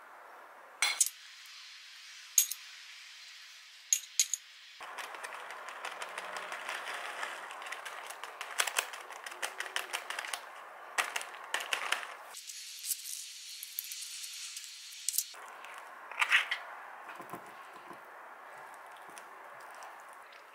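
A metal spoon clinks sharply a few times against a plate, then a plastic bag of shredded cheese crinkles for several seconds as it is opened and shaken out. Near the end come softer spoon scrapes and a clink or two as avocado is spooned on.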